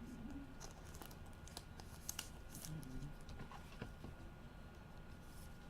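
Faint rustling and small clicks of trading cards being handled, with a few sharper ticks about two seconds in.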